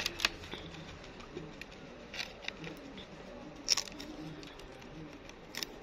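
Hamster crunching food: sharp, irregular clicks and cracks, about ten spread over a few seconds, over a faint low murmur.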